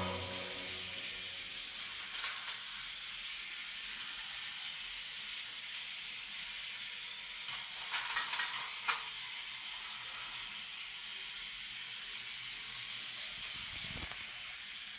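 Steady faint hiss, with a few soft clicks about two seconds in and again around eight to nine seconds in.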